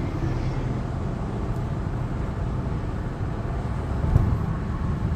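Steady road and engine rumble inside a moving car's cabin, with a brief thump about four seconds in.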